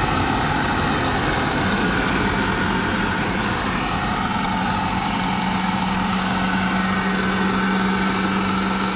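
Food processor motor running steadily, its blade blending a thick mix of soaked garbanzo beans, oats, pecan meal and onion chunks, with a steady low hum under the whir.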